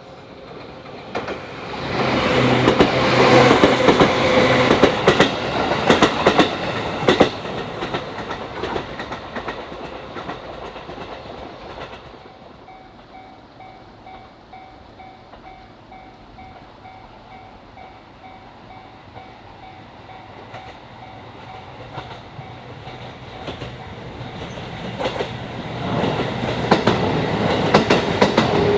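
A train passing close by, its wheels clattering over the rail joints, loudest a few seconds in and fading away by about twelve seconds. After that a level crossing's warning bell rings in an even, repeating rhythm. Near the end another train approaches, growing louder.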